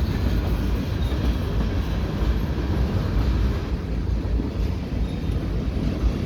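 Freight cars of a passing freight train rolling by: a steady low rumble of steel wheels on the rails.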